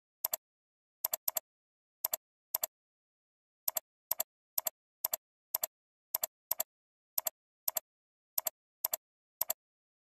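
Computer mouse clicks, each a quick pair of ticks (press and release), about two a second and unevenly spaced, with dead silence between them.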